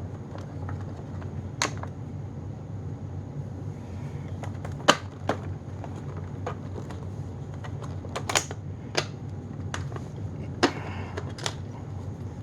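Scattered sharp plastic clicks and knocks from handling and taking apart the brush roll assembly of a Hoover NanoLite vacuum, over a steady low hum.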